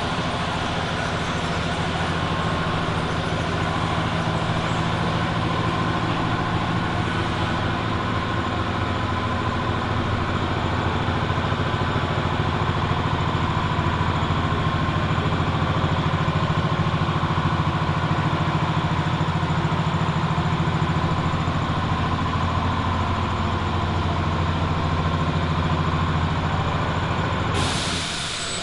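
Large engine or engines running steadily, a low drone that stops abruptly near the end.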